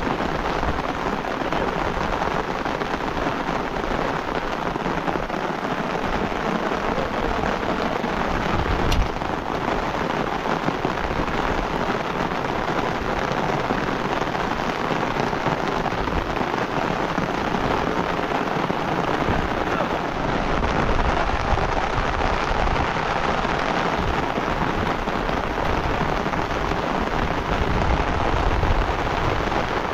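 Heavy rain pouring steadily, with a low rumble that swells and fades underneath.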